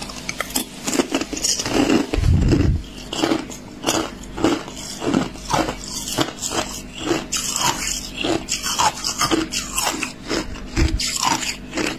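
Thin, hollow clear ice being bitten and chewed: crisp, crunchy cracks in a steady run of about two a second, with one heavier, deeper crunch about two seconds in.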